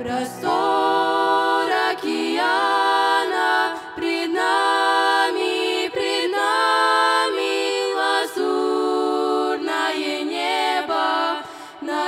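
Female vocal trio singing a Russian-language hymn in close harmony without accompaniment. They hold long notes in phrases of about two seconds, with brief breaths between them.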